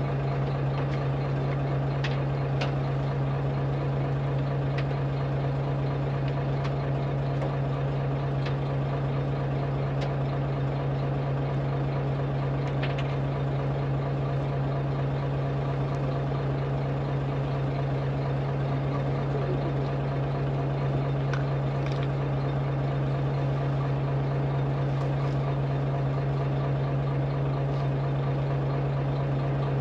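Chartered fishing boat's engine running steadily, a constant low hum with a few faint ticks over it.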